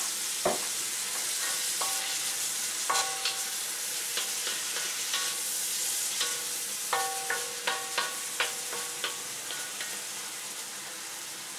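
Minced pork and courgette sizzling in a wok with a steady hiss, stirred with a spatula that knocks against the pan several times, each knock leaving a brief metallic ring, the most of them between about seven and nine seconds in.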